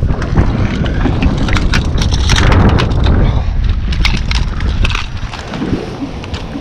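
Wind buffeting the microphone, with a run of crackling clicks and knocks from a landing net and a hooked northern pike being handled in the boat.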